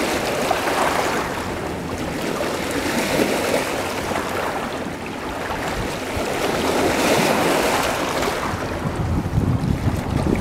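River water washing and splashing against a rocky shore, swelling and easing every couple of seconds, with wind buffeting the microphone.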